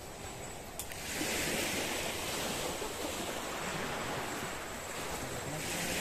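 Sea surf washing onto the beach, swelling about a second in and again near the end.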